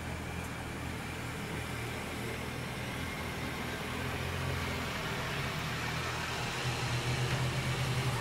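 Single-engine propeller aircraft's piston engine droning in flight, growing louder over the second half as it comes closer.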